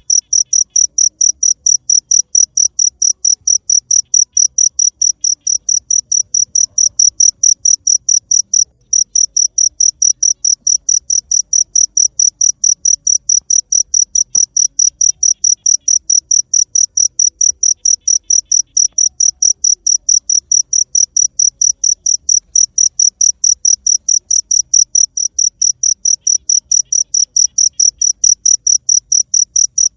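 Cricket chirping steadily in a fast, even rhythm of high chirps, about four a second, with one brief pause about nine seconds in.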